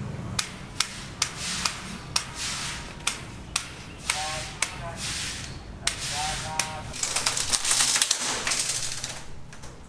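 A run of sharp taps, roughly two a second, with a hissing noise for a couple of seconds near the end.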